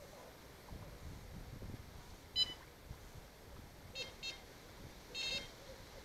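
Electronic carp bite alarm on the rod pod giving short bleeps: one about two seconds in, two quick ones around four seconds, and a short run of bleeps near the end. These are brief indications on the line rather than a full run.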